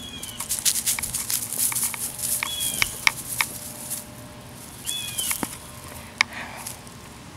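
A small dog's paws and nose rustling and crackling through dry pine straw while it sniffs. Three short high chirps come through along with it.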